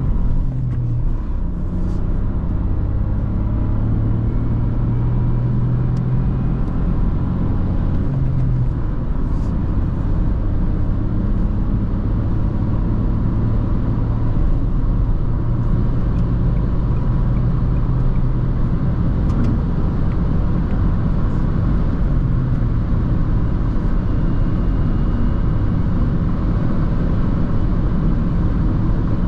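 Dacia Jogger TCe 110's 1.0-litre turbocharged three-cylinder petrol engine running at a fairly steady, low hum while the car is driven, over road and tyre noise.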